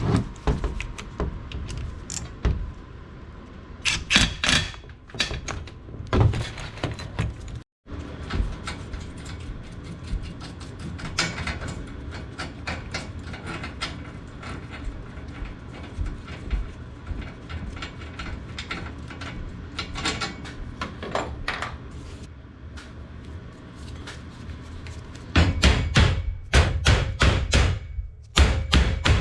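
Metal knocks and clanks from work on a garage door's extension-spring bracket and hardware. Near the end comes a run of rapid heavy blows, about three a second.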